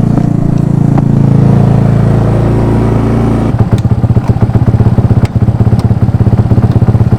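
GY6 150cc single-cylinder four-stroke scooter engine running close by. It holds a steady hum, then about halfway through changes to an evenly pulsing chug of roughly ten beats a second.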